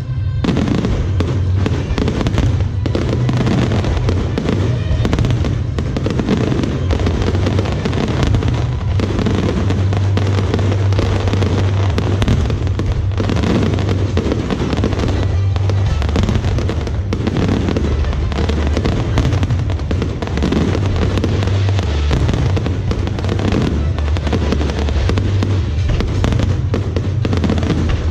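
Fireworks display going off continuously, a dense rapid string of bangs and crackles, with music playing alongside.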